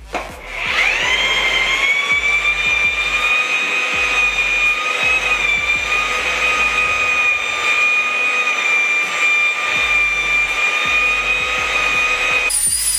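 Parkside 1800 W handheld paddle mixer's electric motor spinning up with a rising whine, then running steadily with a high whine while its paddle stirs concrete mortar in a bucket. Near the end the whine gives way to a higher, thinner tone. A bass beat of background music runs underneath.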